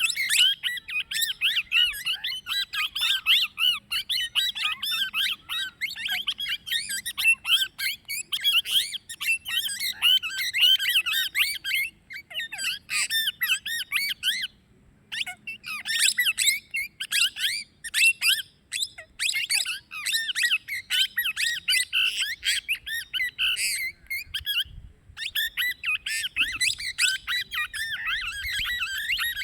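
Plum-headed parakeet calling in a rapid, continuous stream of high chattering squawks and chirps, with a few short pauses.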